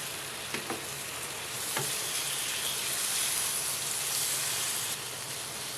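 Pork meat sizzling as it fries in a pan with sautéed garlic and onion, getting louder about a second and a half in and easing near the end. A few light taps of a utensil stirring it early on.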